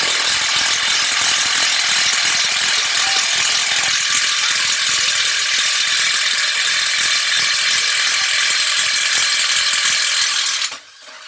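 Ozito cordless impact driver hammering continuously under load as it drives in a bit, then stopping suddenly near the end.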